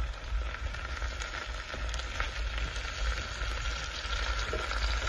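Pieces of rabbit sizzling in a frying pan: a steady frying hiss sprinkled with small crackles.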